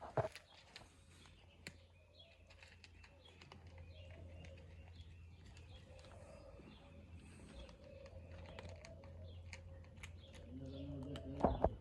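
Cats eating, a run of small irregular crunching clicks, with birds chirping in the background. A brief louder pitched sound comes near the end.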